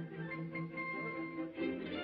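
Orchestral background music, with strings holding long notes.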